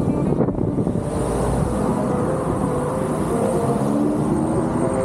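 Wind rumbling on the microphone while riding an electric unicycle, over steady road and traffic noise, with a few faint tones that waver in pitch.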